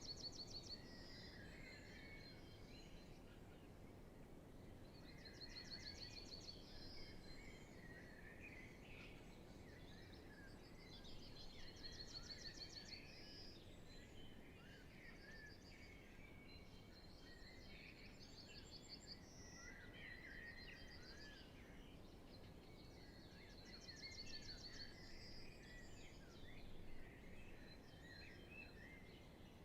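Faint spring dawn chorus: many songbirds singing at once, with one bird repeating a short, fast, high trilling phrase every five or six seconds above the rest.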